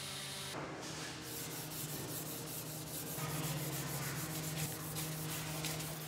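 Wooden car body being rubbed down by hand with a pad, quick repeated strokes over the wood surface, over a steady low hum.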